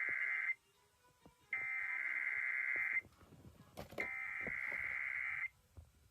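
Emergency Alert System SAME header tones: bursts of digital data tones, each about a second and a half long, about a second apart. The end of one burst, then two full ones, with a sharp click between the second and third.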